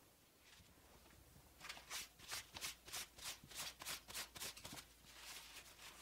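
Paper towel rubbed briskly back and forth over a small wooden block, about three dry scratchy strokes a second, turning into a softer continuous rub near the end.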